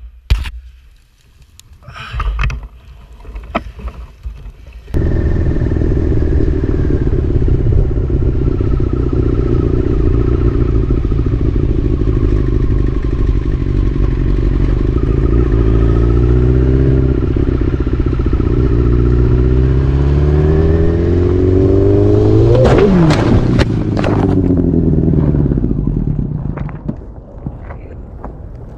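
Motorcycle engine running, heard from the rider's point of view, starting about five seconds in and climbing in pitch as the bike accelerates. About two-thirds of the way through comes a crash: a quick cluster of impacts and scraping, after which the engine noise falls away.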